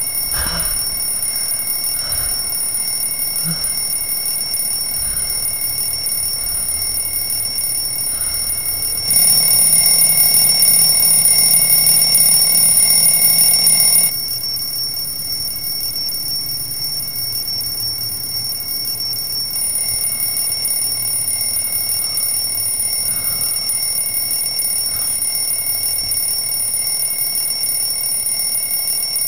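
An alarm clock ringing continuously with a steady high-pitched tone. It gets louder for about five seconds near the middle, then drops back.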